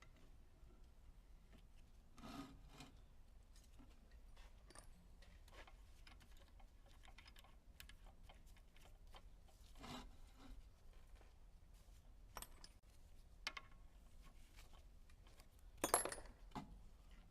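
Scattered light clicks, clinks and knocks of a metal carburetor throttle plate and tools being handled on a bench, with one louder clunk near the end; no drill running.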